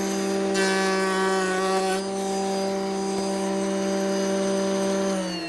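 A table-mounted router runs with a steady whine. About half a second in, its reverse glue joint bit cuts along a board's edge for about a second and a half, adding a louder rasping to the whine. Near the end the router's pitch starts to fall as it winds down.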